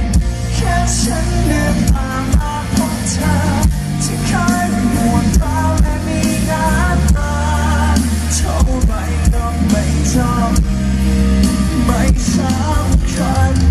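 Live rock band playing through a concert PA: drums, bass and guitar, with a male singer's voice carrying the melody over the band.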